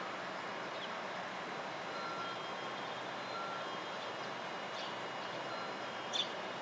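Steady hum of a JR 311 series electric train standing at the platform with its pantograph up and its onboard equipment running. Over it come faint short beeps about every second and a half, and a few short high bird chirps, the loudest about six seconds in.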